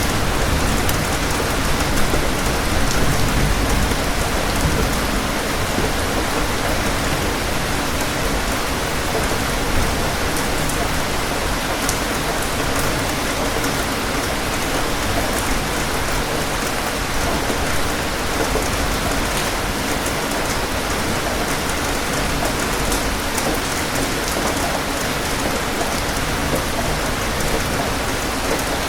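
Steady rain, an even hiss with scattered sharp drop ticks. A low thunder rumble swells in the first few seconds, then settles back under the rain.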